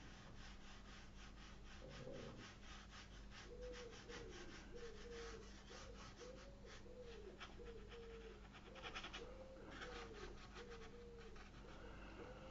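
Faint, rapid scratching of a paintbrush working on rough watercolour paper. Through most of it a bird's soft low cooing repeats about twice a second.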